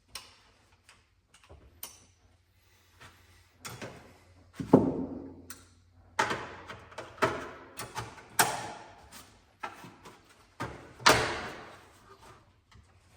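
Hand tools and engine bolts and parts being handled during an engine bottom-end strip-down: a series of separate metal clunks and clatters, several ringing briefly, the loudest about five, eight and eleven seconds in.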